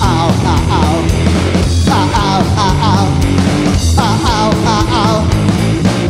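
Live rock band playing loud: drum kit, electric bass and distorted electric guitar, with a wavering lead line in short phrases that repeat about every two seconds.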